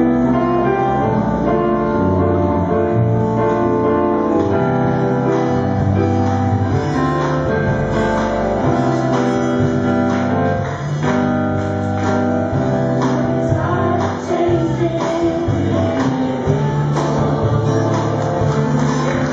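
A mixed group of men and women singing a gospel song together, with live band accompaniment including guitar and drums.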